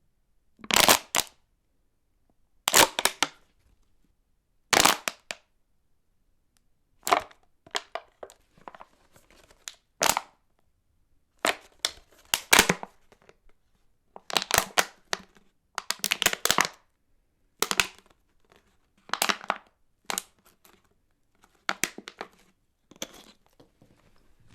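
Thin plastic water bottle being crushed by hand again and again: a dozen or so sharp crackling crunches, each under a second long, coming every one to two seconds with short silences between.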